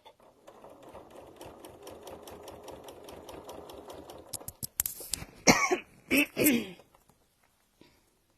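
A domestic sewing machine stitching at a steady, rapid rate for about four seconds, then stopping. Right after it, a person coughs and clears her throat three times, louder than the machine.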